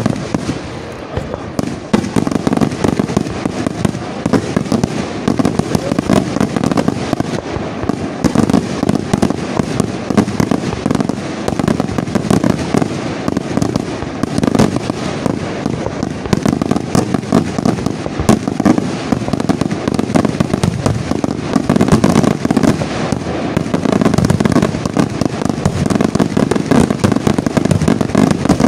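Aerial fireworks shells bursting in a dense, continuous barrage, with many bangs overlapping and crackling between them. The barrage thickens about two seconds in and keeps up without a break.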